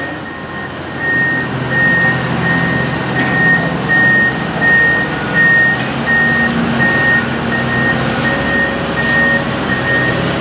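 A construction machine's reversing alarm beeping at an even pace, over the low drone of running machine engines.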